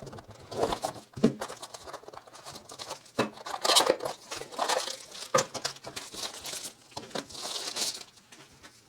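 Product packaging being handled and unpacked: a series of paper and plastic rustles and crinkles with light knocks, including a longer crinkle near the end.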